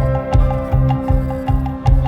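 Background music with a steady low beat, about three pulses a second, under held tones.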